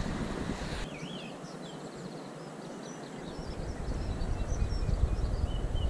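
Wind buffeting the microphone, which cuts out about a second in and builds back up in the second half, with small birds chirping and singing throughout.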